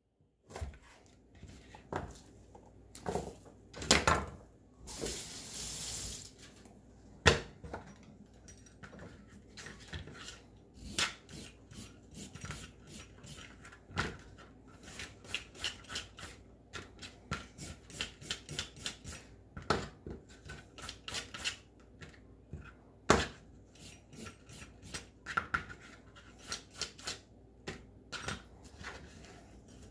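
Chef's knife cutting through red onion on a plastic cutting mat, then a julienne peeler scraping carrots into thin strips in quick, repeated strokes with light clicks and taps on the mat. A few sharper knocks stand out among them.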